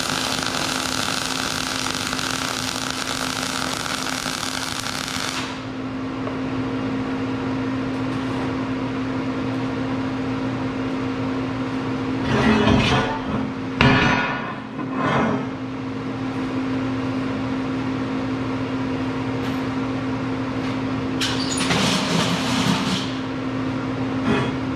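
Welding on steel in a metal shop: a steady crackling arc hiss that stops sharply about five seconds in. Under it runs a steady machine hum, and there are short bursts of welding or metal-working noise twice later on.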